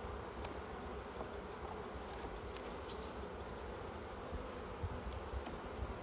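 Honey bees buzzing steadily around an open hive, with a few faint ticks near the middle.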